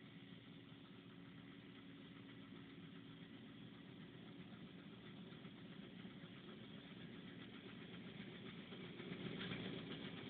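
Zetor 7341 Super Turbo tractor's diesel engine running steadily in the distance, faint and slowly growing louder as the tractor comes closer.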